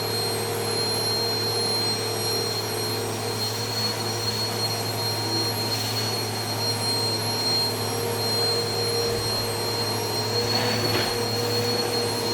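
Vacuum cleaner running steadily with a constant hum and high whine, its nozzle being worked over a dog's coat. The tone wavers briefly about six and eleven seconds in.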